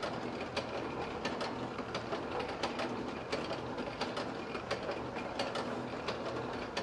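Mechanical candy-pulling machine running, with a steady hum and a rhythmic clicking from its gears and arms at about two to three clicks a second.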